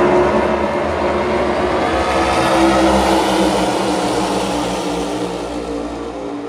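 A pack of NASCAR Cup Series stock cars racing past at full speed, their V8 engines blending into one loud, dense roar. The roar fades over the last few seconds as the pack pulls away down the track.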